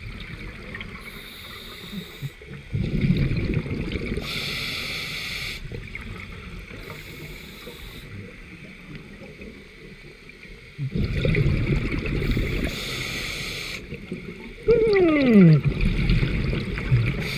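Scuba regulator breathing recorded underwater: hissing inhalations alternate every few seconds with rumbling bursts of exhaust bubbles. Near the end comes a loud falling hum, the diver's 'hmmm' through the regulator.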